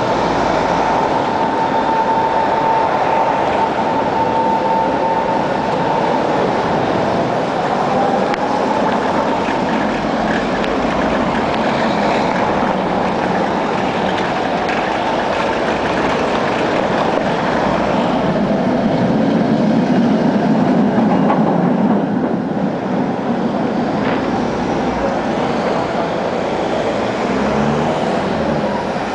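Tatra T3 tram running along the rails just ahead, a dense rough rumble and rattle throughout. A steady high tone sounds for about the first six seconds, then glides in pitch, and the low rumble swells for a few seconds past the middle.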